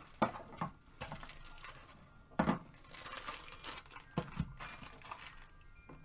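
Plastic bags crinkling as packaged accessories, a power adapter and power lead still in their bags, are handled and set down on a wooden board, with a few sharp knocks as they land.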